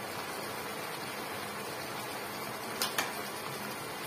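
Gravy simmering in a cooking pot, a steady bubbling hiss, with two short clicks close together about three seconds in.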